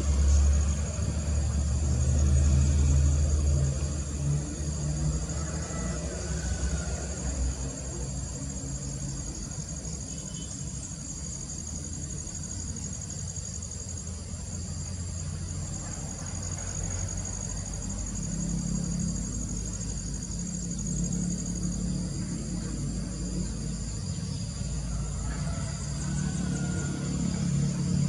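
Steady high-pitched insect chorus over a constant low rumble.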